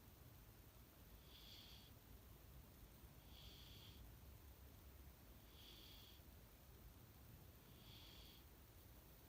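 Sleeping cat snoring softly: four faint, high-pitched wheezy snores, one with each breath, about two seconds apart.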